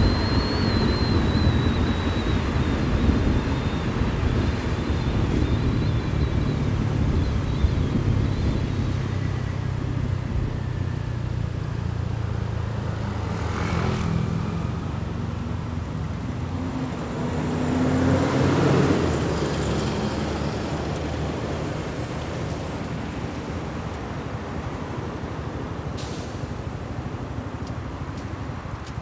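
Motorcycle taxi engine running with road and traffic noise, heard from the pillion seat on the moving bike. There is a steady low rumble and hiss. About two-thirds of the way through a louder vehicle sound swells up and fades as it passes.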